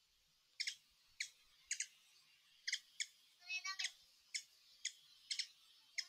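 Small bird giving short, sharp, high chirps, roughly two a second, with a quick rattling trill about halfway through.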